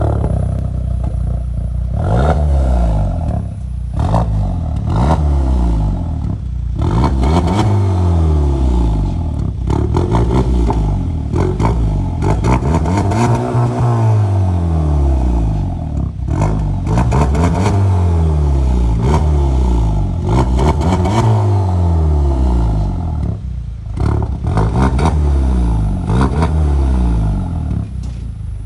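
Volkswagen Tiguan 2.0-litre turbo petrol engine revved repeatedly while standing, each rev climbing and dropping back, heard through its stock exhaust with the resonator removed and the rear mufflers reworked for a deeper sound.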